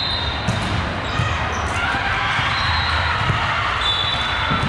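Basketball being dribbled on a gym court during a game: repeated dull bounces over the echoing background noise of a large gym, with a few short high squeaks.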